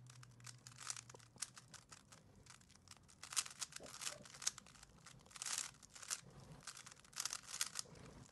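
Plastic 3x3 speedcube being turned fast in a speed solve, its layers giving faint quick clicks and clacks in uneven flurries.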